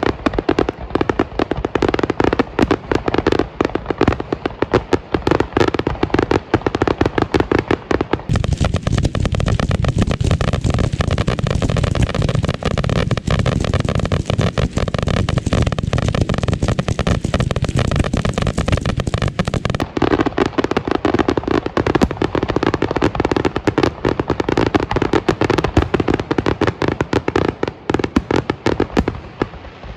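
A nonstop barrage of aerial firework shells bursting, the bangs coming too fast to count. The barrage gets heavier and deeper for about twelve seconds in the middle, then eases back.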